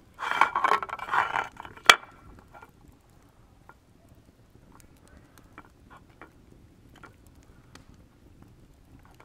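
Hands pressing and spreading oiled pizza dough in a round metal pan. A rough scraping rustle comes first, then one sharp click about two seconds in. Scattered soft little clicks and taps follow as the dough is pushed out to the pan's edge.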